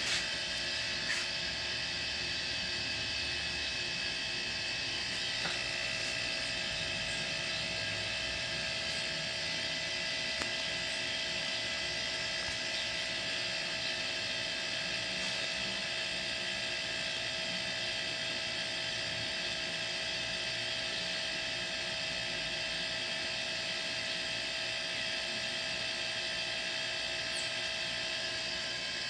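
Two refrigerator compressors running together as a homemade air compressor, pumping air into its tank: a steady hum with a constant high whine.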